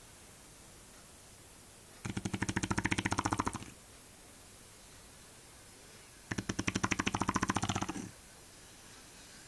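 Shar-Pei dog snoring in its sleep: two long snores about four seconds apart, each a rapid fluttering rattle lasting about a second and a half.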